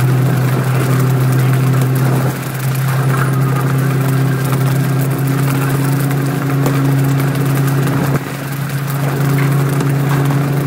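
Fishing boat's diesel engine running steadily with a low drone, under a rushing hiss of the sea and the boat's wake.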